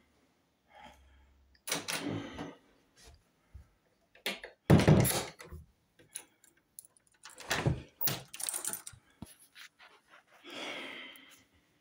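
Several thuds, knocks and rustles in a small, mostly empty room, the loudest a heavy thud about five seconds in.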